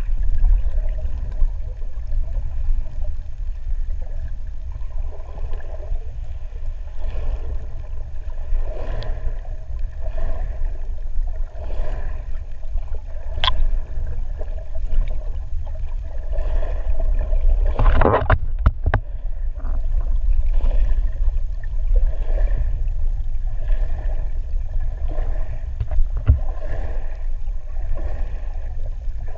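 Muffled underwater water noise picked up by a submerged camera: a steady low rumble with pulses of swishing water about once a second, and a louder, gurgling burst about 18 seconds in.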